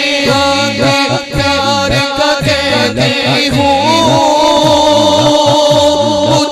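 A male voice sings a naat, an Urdu devotional song, into a microphone over a low backing that repeats about twice a second. From about halfway through he holds one long, wavering note.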